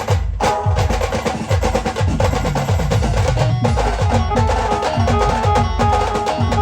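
Band music, instrumental: a fast, driving drum rhythm under a melody line of held notes, with no singing.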